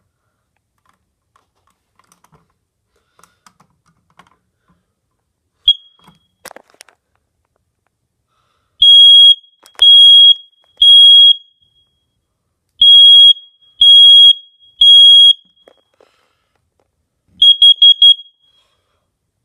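Household carbon monoxide alarm sounding a test cycle with one high, steady tone. It gives a single short chirp, then two sets of three loud long beeps, the standard fire-alarm pattern, then four quick beeps near the end, the pattern used for a carbon monoxide warning.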